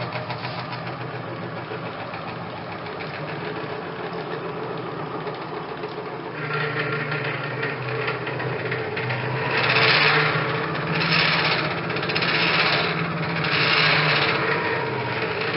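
Stepper-motor drives of a homemade 5-axis CNC machine moving its axes with no spindle running: a steady whine whose pitch changes about six seconds in, followed by four louder rasping surges as the axes move.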